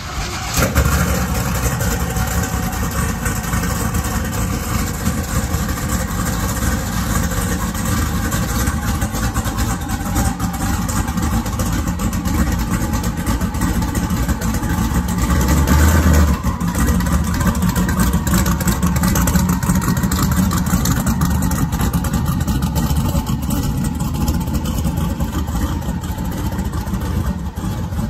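LS-based V8 in a Chevy Colorado drag truck starting about half a second in, then running at a steady idle. It revs up briefly about midway as the truck is moved out of its trailer.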